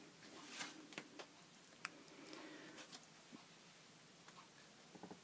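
Near silence with faint rustling and a few light taps and clicks as hands press and rub a greyboard journal page down onto a Gelli printing plate.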